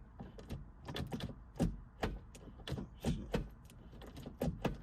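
Manual gear lever of a Toyota MR2 being worked by hand through a newly fitted short shifter: a string of irregular clicks and clunks from the shifter mechanism.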